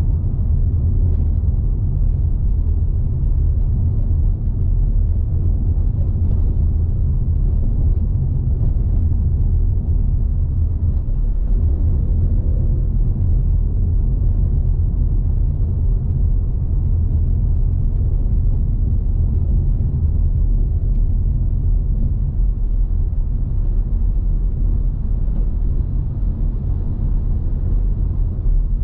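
Car being driven: a steady low rumble of road and engine noise.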